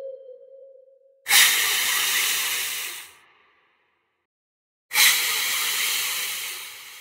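Two loud hisses, each about two seconds long, starting suddenly, the second fading away at the end.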